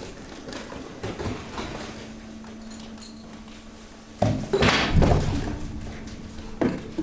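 Hydraulic waste compactor running, with the steady hum of its pump. About four seconds in comes a loud clattering, crunching burst of waste being pushed and crushed, lasting about a second and a half, then a shorter knock near the end.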